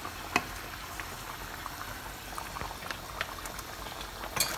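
Chicken curry sauce bubbling and popping as it simmers in a pan, with a steady fizz and scattered small pops. A wooden spoon is stirring through it, with a louder rush near the end.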